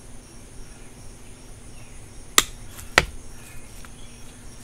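Two sharp snips of bonsai pruning shears cutting through Chinese elm stems, a little over half a second apart, over a steady high insect drone.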